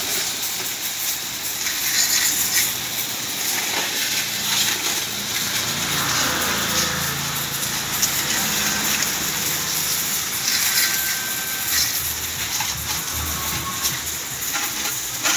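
High-pressure water jet spraying a motorcycle: a steady hiss of spray hitting the bike and the wet concrete.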